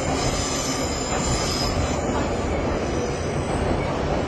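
Subway train running, heard from inside the carriage: a steady low rumble, with a faint high-pitched whine over it for the first two seconds or so.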